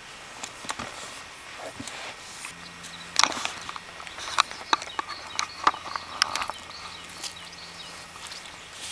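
Footsteps and rustling in grass with the knocks and clicks of a handheld camera being moved, a cluster of sharp clicks coming from about three to six and a half seconds in.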